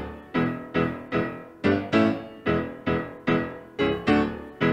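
Solo piano playing an instrumental interlude between sung verses of a gospel song: a steady, bouncy run of struck chords, about three a second, each ringing and fading before the next.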